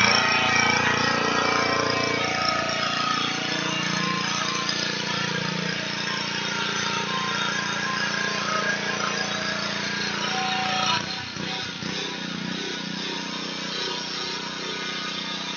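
Pressure washer running steadily, its motor's hum under the hiss of the high-pressure water spray on a building wall. The sound dips and shifts briefly about eleven seconds in.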